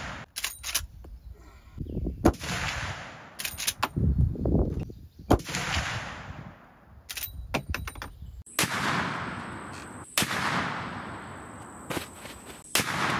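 A series of rifle shots from a Marlin 1895 Trapper lever-action chambered in .45-70 Government. Each shot is a sharp crack followed by a long fading echo, and there are smaller clicks between some of the shots.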